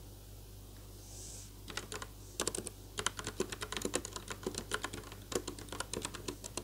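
Fast typing on a keyboard with round typewriter-style keycaps: a rapid run of key clacks that starts about a second and a half in, with a brief pause about five seconds in.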